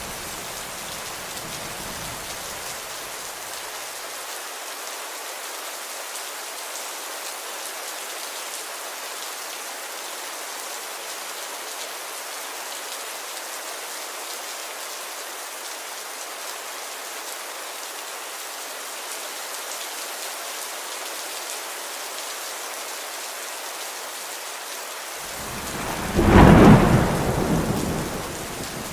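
Steady rain falling. A low thunder rumble fades out over the first few seconds, and near the end a loud roll of thunder swells and dies away over about three seconds.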